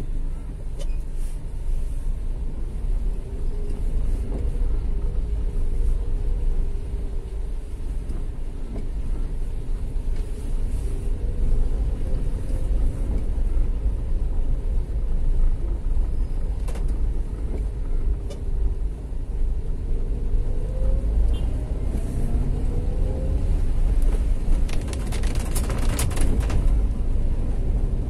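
Motor vehicle running through city traffic: a steady low rumble, with an engine note that rises and falls several times. A burst of sharp clicks and rattles comes near the end.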